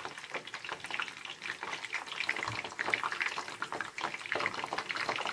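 Stuffed zucchini frying in a pan of hot oil, with dense, steady crackling and sizzling. They are being half-fried, taken out while still green.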